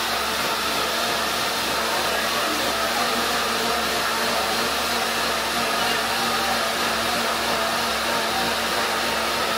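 Kitchen blender motor running steadily at one speed, a loud, even whir with a constant hum.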